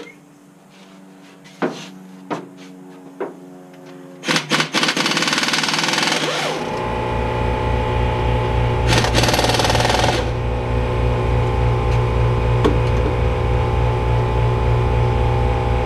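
A few light clicks, then about four seconds in a burst of hissing noise, and from about seven seconds a motor-driven machine starts and runs steadily with an even, low pulsing; a second burst of hiss comes about nine seconds in.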